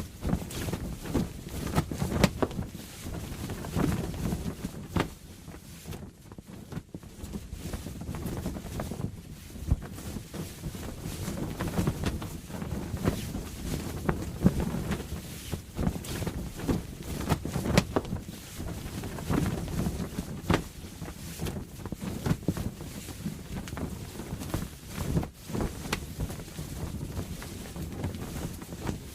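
Canvas sail flapping in strong wind, with irregular sharp snaps and cracks of the cloth over a steady rush of wind.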